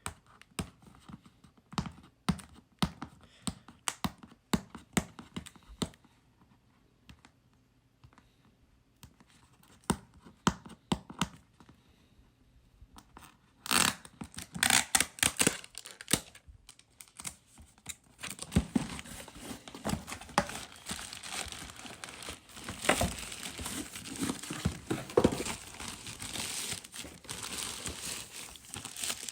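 Packaging being handled and opened. First come scattered light clicks and taps. About halfway through, plastic wrapping is torn, and it then crinkles and rustles continuously.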